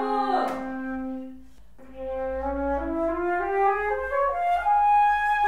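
Concert flute holding a low note that stops about a second and a half in, then, after a short break, playing a rising stepwise scale up from the low register to a held higher note.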